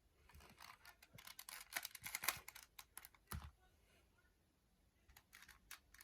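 Plastic Rubik's Cube layers being twisted quickly: a rapid run of short clicks for about three seconds, then a pause and a few faint clicks near the end.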